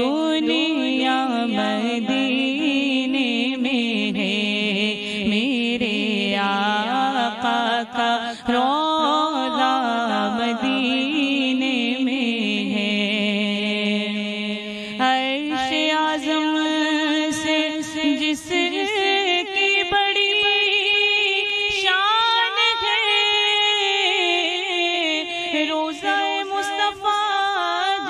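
A woman singing an Urdu naat in praise of the Prophet and Madina into a microphone, in one continuous melodic line with long held notes and ornamented glides between pitches.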